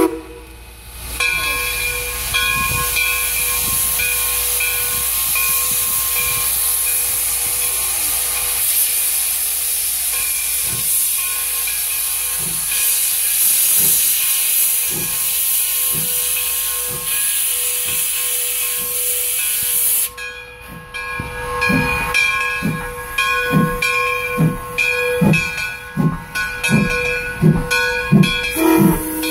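Steam locomotive No. 17 starting off with its train: a loud, steady hiss of steam venting at the cylinders, under which slow exhaust chuffs gradually quicken. About twenty seconds in the hiss drops away and the chuffs become louder and faster as the engine passes close.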